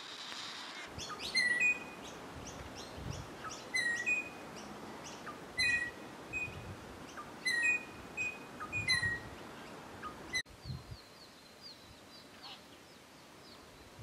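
Eastern rosella calling: five short bursts of clear, sharp whistled notes, about one every two seconds. After a sudden cut about ten seconds in, only faint high chirps of small birds remain.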